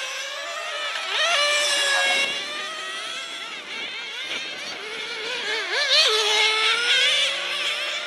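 1/10-scale radio-controlled racing cars lapping the track, several high-pitched motors overlapping, their pitch rising and falling as the cars accelerate and slow for the corners.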